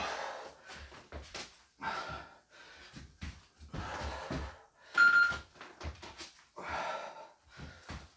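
A person bear-crawling on a floor: soft, irregular thuds and scuffs of hands and feet landing about once a second, with one short, sharp high tone about five seconds in.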